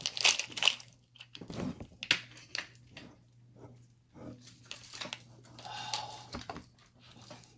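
Irregular clicking and clattering of small hard objects, padlocks and lock-picking tools, being picked up and handled.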